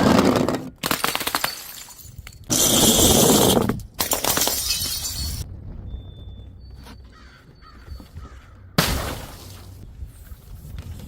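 Glass bottles shattering and crunching, one break after another: five crackling bursts, the loudest about two and a half seconds in, with a quieter lull in the middle.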